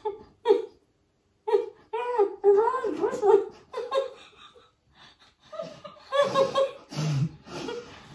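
A woman laughing with her mouth stuffed with marshmallows: short breathy bursts, then pitched giggling, and denser bursts of laughter about six seconds in.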